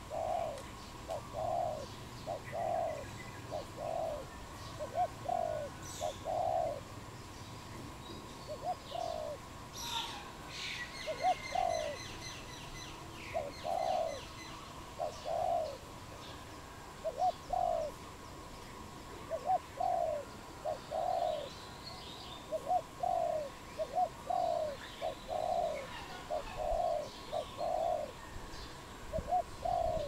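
Spotted dove cooing over and over, soft low coos in phrases of two or three notes. A brief chirping trill from another small bird comes in about ten seconds in.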